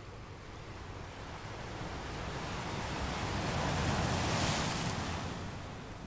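Underwater water noise picked up by a diving camera: a low rumble with a rushing hiss that swells, is loudest about four seconds in, then fades.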